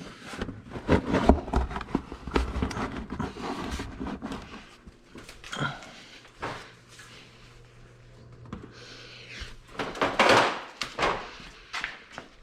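Irregular knocks, clicks and clatter of tools and metal parts being handled, thickest in the first few seconds, with a louder rustling scrape about ten seconds in.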